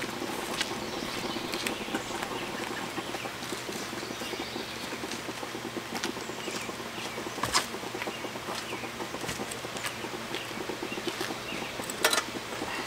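Birds calling in the background while camp gear is handled, with two sharp knocks, one about halfway through and one near the end.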